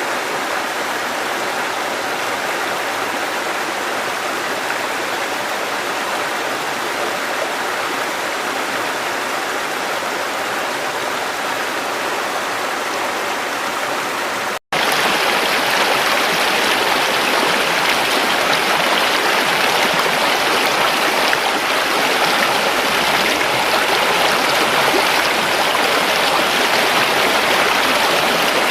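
River water rushing steadily over rocks, a continuous even wash of sound. About halfway through it cuts out for an instant and comes back louder and brighter.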